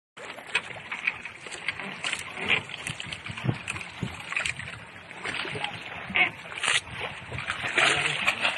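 Water splashing and slapping irregularly against the side of a small fishing boat as a hooked tuna thrashes alongside and is gaffed, with scattered knocks on the hull and gunwale. The splashing grows louder toward the end.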